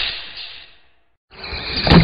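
Logo sting: a swoosh sound effect that fades out within the first second, then a brief gap, then music swelling in with a sharp hit near the end.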